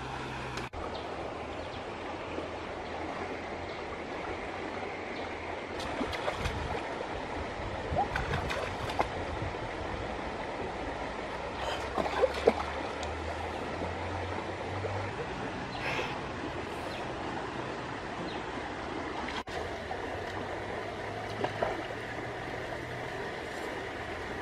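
Steady running water, like a small stream, with a few short, sharp clicks scattered through it.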